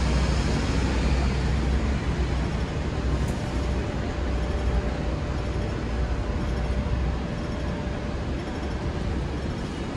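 Hong Kong double-decker tram running along its tracks, heard from aboard: a steady low rumble with street noise. The deep rumble eases about seven seconds in.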